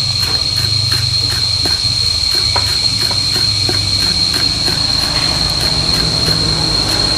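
A knife chopping green onions on a cutting board in quick, even strokes, about three to four a second, over a steady high insect drone.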